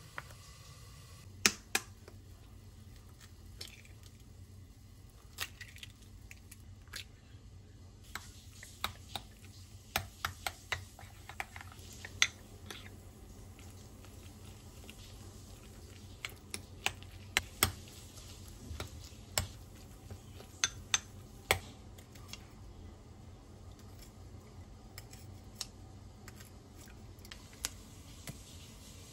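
Kitchen prep noises: scattered light clicks and knocks of utensils and dishes being handled, a few sharp taps at a time, over a faint steady low hum.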